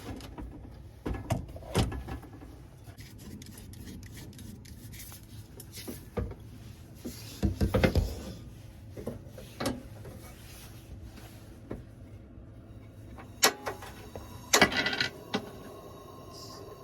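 Intermittent clatter, knocks and rubbing of cooking gear being handled while a camp stove is set up. A flurry of knocks comes about eight seconds in, and the loudest clatter comes about fifteen seconds in.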